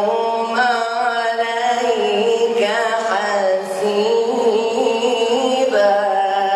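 A man reciting the Quran in a melodic chanted style, holding long ornamented notes that waver and glide in pitch, amplified through a handheld microphone.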